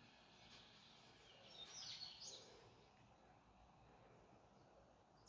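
Faint calls of black birds: a short burst of high chirping about two seconds in, over quiet background noise.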